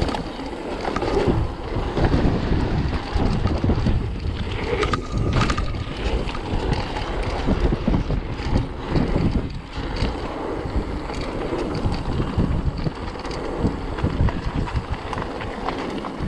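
Wind rushing over the microphone of a mountain bike rider, with frequent knocks and rattles from the bike over rough trail.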